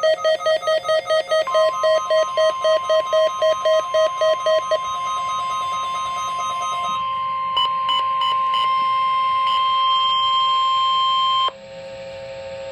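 Weather radio alert: a rapid electronic beeping, about five beeps a second, fades out about five seconds in, while the steady single-pitched NOAA Weather Radio warning alarm tone starts about a second and a half in, holds for about ten seconds and cuts off suddenly, leaving a quieter, lower steady tone.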